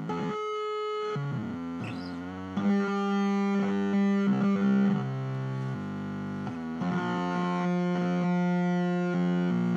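Electric guitar played through a circuit-bent BOSS DS-1 distortion pedal, giving held, synth-like distorted notes that jump abruptly from one pitch to another.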